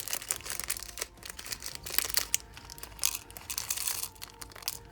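A bag of nail-art charms crinkling and rustling in the hands as it is handled, with irregular crackles.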